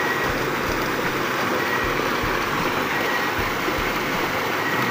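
River water rushing and tumbling over rocks in a small cascade, a steady loud rush.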